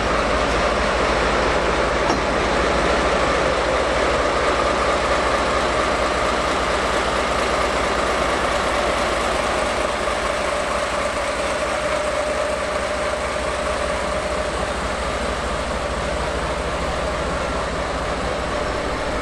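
Diesel locomotive idling, its engine and cooling fans giving a steady hum with a whine over it.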